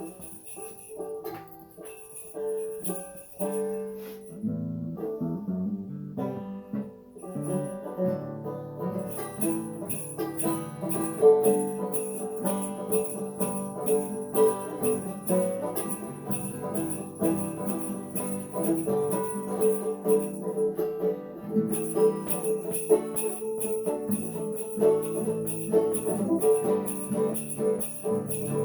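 Acoustic jam of plucked banjo and guitar with sleigh bells shaken in a steady rhythm. The bells drop out for a few seconds about four seconds in, then come back for the rest.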